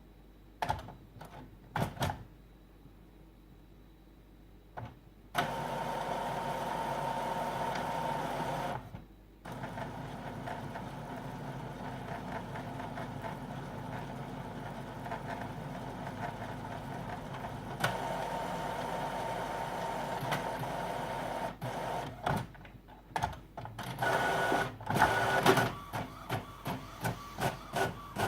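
Epson WorkForce WF-3620 inkjet printer running its ink-charging cycle after new cartridges are fitted. A few clicks, then steady mechanical whirring from about five seconds in with a short pause, then a quick run of stuttering clicks and whirs near the end.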